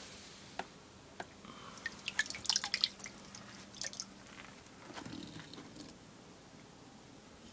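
Scattered small clicks and drip-like taps from metal feeding tongs, a thawed feeder rat and plastic snake tubs being handled. The taps are densest about two to three seconds in, over a faint steady hum in the first half.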